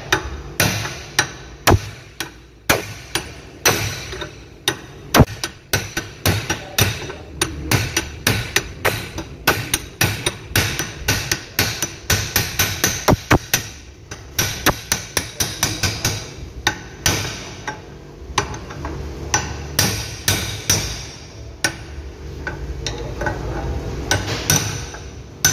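Hammer blows on a steel drift rod braced against a front wheel bearing in a hub held in a bench vise: sharp metal-on-metal strikes, a few a second, with quicker runs of blows in the middle. The blows are driving the worn bearing off the hub by hand, without a press.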